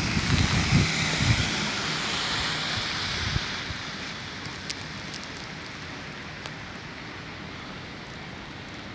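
Red London double-decker bus passing close by, its engine rumble and road hiss fading away over the first three or four seconds. After that, a quieter steady hiss of street noise with a few faint ticks.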